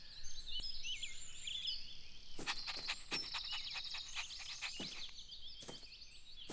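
Background birdsong: many short high chirps and whistles, with a fast dense trill from about two and a half seconds to three and a half seconds in, and a few sharp clicks.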